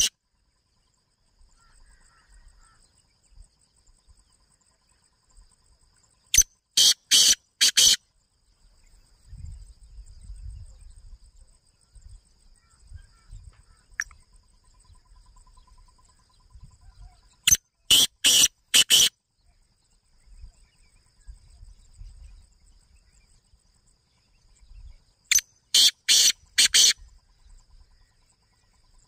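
Caged bird calling in loud bouts of four or five harsh, high notes, three bouts about ten seconds apart. A faint, steady, high insect-like trill runs between them.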